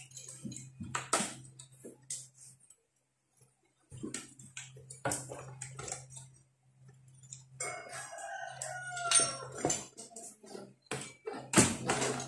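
Clicks and clatter of a finned aluminium heatsink and circuit board being worked loose and lifted out of a stereo amplifier's metal chassis. A drawn-out, wavering animal call sounds about two-thirds of the way through.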